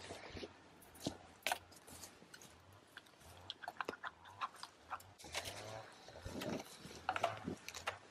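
Light rustling and scattered small clicks of hands working a wire through the hole in a stone weight in long grass.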